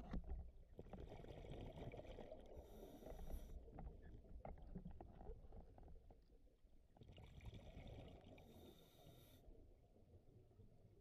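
Scuba diver breathing through a regulator, heard faintly underwater: two inhalations, each a hiss of two to three seconds, starting about a second in and about seven seconds in, with the low rumble and gurgle of exhaled bubbles between them.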